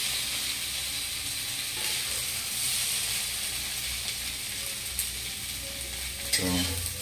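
Potato and cauliflower pieces sizzling in hot oil in a metal kadhai as they are scooped out with a spatula. A steady hiss runs throughout, with a couple of short clicks of the spatula against the pan about five and six seconds in.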